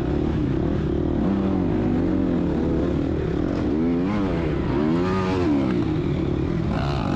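2022 GasGas EX250F's 250cc four-stroke single-cylinder dirt-bike engine running on the trail, its revs rising and falling several times as the throttle is worked.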